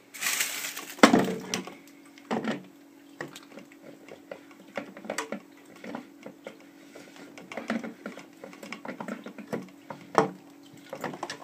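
Irregular plastic clicks, knocks and scrapes of a plastic filter housing being handled and worked onto the head of a reverse osmosis unit, the loudest knock about a second in. A faint low steady hum runs underneath.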